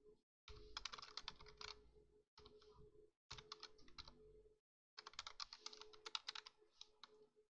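Computer keyboard typing, faint, in several quick runs of keystrokes with short pauses between them.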